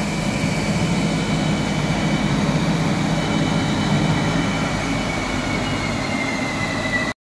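Bütfering AWS 2C-1100 wide belt sander running steadily with a board on its infeed conveyor: a constant low hum under several high whine tones. The whine grows a little stronger shortly before the sound cuts off abruptly.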